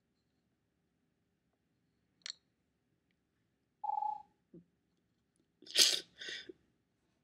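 A person crying without words: a short whimper about four seconds in, then two loud, sharp sniffs close together near the end.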